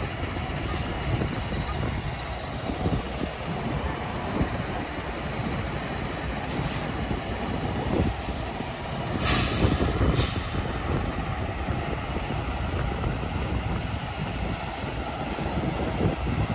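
Bobtail semi tractors rolling slowly past on wet pavement, their diesel engines running with a steady low rumble. About nine seconds in there is a sharp burst of air hiss from a truck's air brakes.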